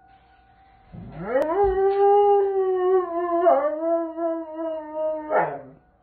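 Doberman howling: one long howl that swoops up steeply about a second in, holds its pitch, drops slightly partway through and breaks off with a short fall near the end. It is set off by the tornado siren, whose faint steady tone is heard in the first second.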